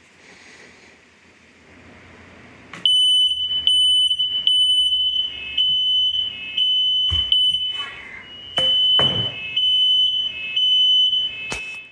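Interconnected household smoke alarms sounding together: loud, high-pitched beeping in a repeating on-off pattern, two slightly different pitches out of step. It starts about three seconds in and cuts off abruptly near the end.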